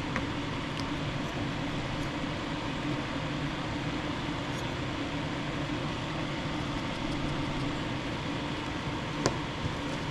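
Steady fan hum with a faint low drone running through it, and one light click about nine seconds in.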